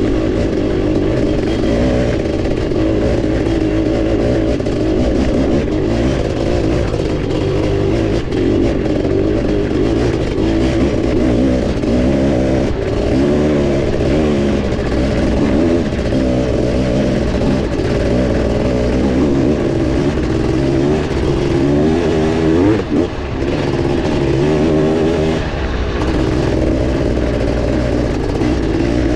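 Honda CR500's 491 cc single-cylinder two-stroke engine running under load, its revs rising and falling again and again with the throttle.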